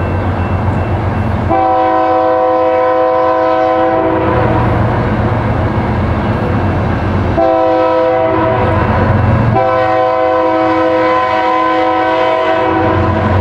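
Canadian National diesel freight locomotive's multi-note air horn sounding a long blast, a short one and another long one, over the low rumble of the approaching locomotives' diesel engines.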